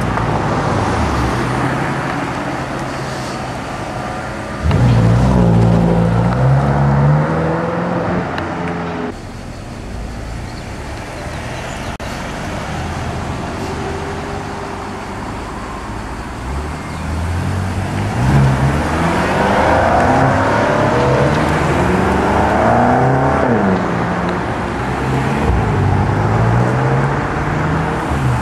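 2011 BMW M5 saloons with their 4.4-litre V8s pulling away and accelerating past one after another, the engine note rising in pitch several times as they rev up. It is loudest about five seconds in and again from about eighteen seconds on.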